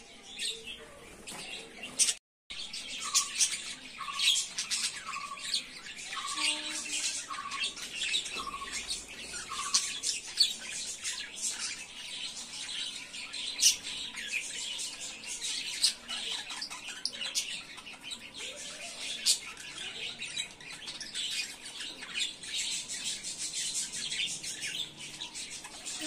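Budgerigars chattering: a dense, fast warble of high chirps and sharp squawks, the chatter of a budgie pair mating. In the first ten seconds a lower short call repeats over and over, and the sound cuts out completely for a moment about two seconds in.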